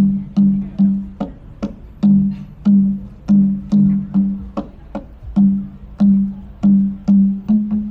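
Background music with a steady beat of short, low plucked notes and clicking percussion.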